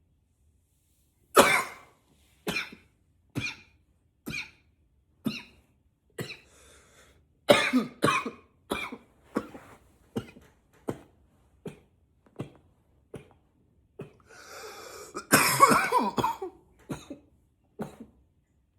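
A man coughing again and again: short single coughs about once a second, a quick run of them partway through, and a longer, harder coughing fit near the end.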